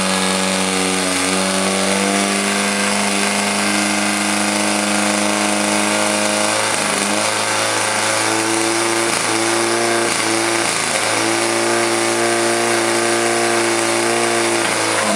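Portable fire pump's engine running hard and steady, pumping water out to the hose jets; its pitch shifts a few times in the second half.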